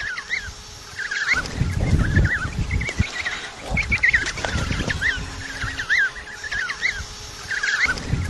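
A penguin colony: many penguins calling at once in short, overlapping, bending calls. Surges of low rumbling noise come and go beneath them.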